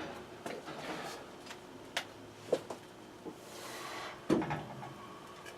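Pipe wrench working an old threaded pipe joint loose: scattered metallic clicks and knocks, a short scrape a little past halfway, and one louder knock about four seconds in.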